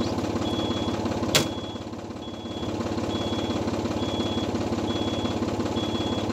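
Case IH loader tractor's engine idling steadily, with an electronic beep repeating about once a second. About a second and a half in there is a single sharp snap from a fallen battery cable shorting out on the old Caterpillar 955L crawler loader.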